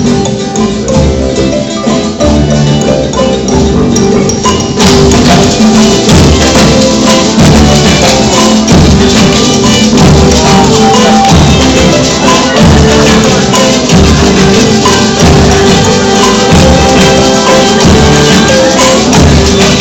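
Music with percussion keeping a steady beat under sustained notes, filling out and getting brighter about five seconds in.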